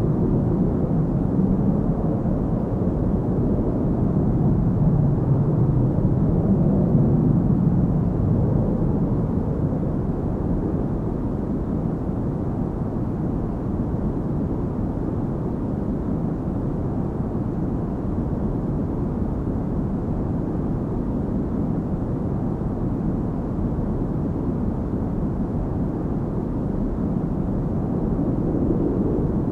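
Steady cabin noise of a jet airliner in flight, a dull, deep rushing drone with no distinct tones. It swells slightly a few seconds in and again near the end.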